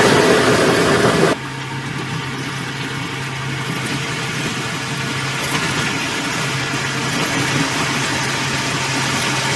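A louder sound cuts off suddenly just over a second in, leaving a heavy construction machine's diesel engine running steadily at low revs.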